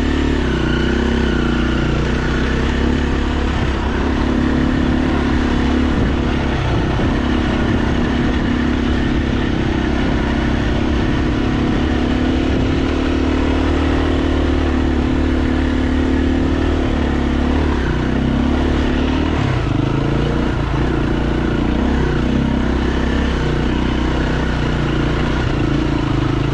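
KTM dirt bike engine running at a steady throttle while riding a trail, its pitch wavering up and down with the throttle in the last third.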